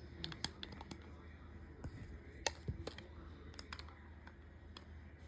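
Faint, irregular small clicks and taps of a plastic toy walkie-talkie being handled and worked on.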